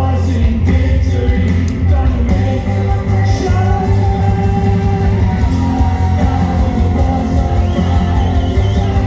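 Worship music: a band with a strong steady bass and a singing voice holding long notes, with a beat running through.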